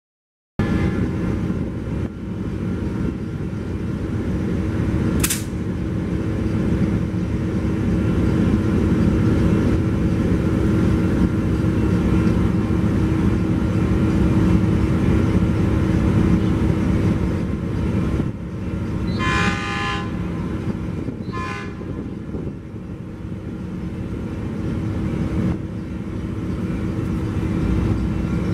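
Metrolink commuter train approaching, sounding its horn with a long blast about two-thirds of the way in and a short one about two seconds later, over a steady loud rumble.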